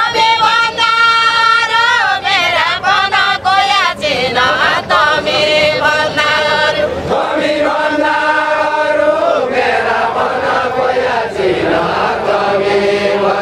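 A group of voices singing a Deuda folk song together in unison, in long held notes that slide from one pitch to the next.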